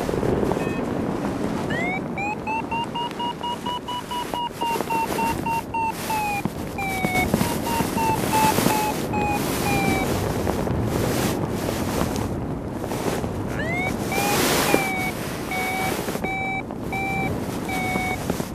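Paragliding variometer beeping rapidly in its climb tone, which signals lift: a first run glides up in pitch about two seconds in and slowly sinks until about ten seconds, and a second run glides up about fourteen seconds in and holds. Steady wind rushes over the microphone throughout, with louder gusts in the middle and about fourteen seconds in.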